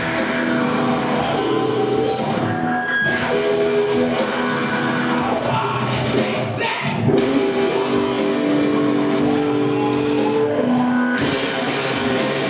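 Live rock band playing: guitars with sung vocals, held notes over changing chords.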